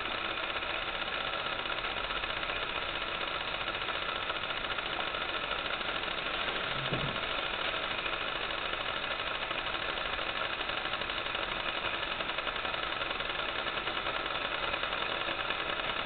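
A steady mechanical hum and whir that holds unchanged throughout, like a small motor running.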